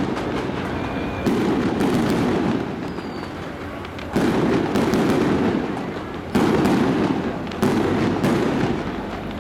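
Strings of firecrackers crackling in dense, rapid volleys. Fresh loud bursts start suddenly about a second in, near halfway, and twice more in the second half, each dying down slowly.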